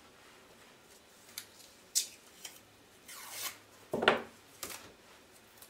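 Hands handling craft materials on a tabletop: a few light clicks and taps, a short rubbing scrape about three seconds in, then a louder knock about four seconds in.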